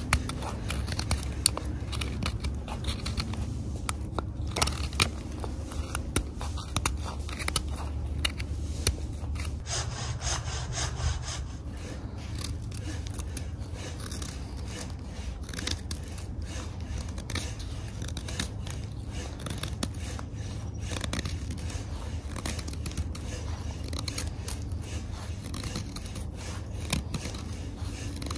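A steel knife blade scraping and shaving thin curls off a wooden stick in repeated short strokes, over a steady low rumble.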